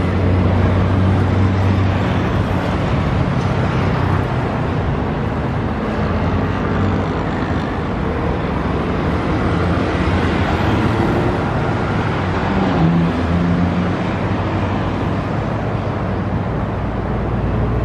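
Steady road traffic noise of passing cars and motor vehicles. A low engine hum fades out over the first several seconds.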